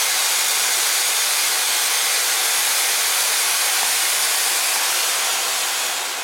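Silver spark fountain firework (Blackboxx Super-Vulkan) burning with a steady, loud hiss of spraying sparks, which starts to die away near the end as the fountain burns out.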